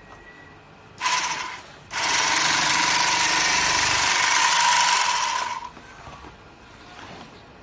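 Bag-closer sewing machine running: a short burst of under a second, then a run of nearly four seconds with a steady whine.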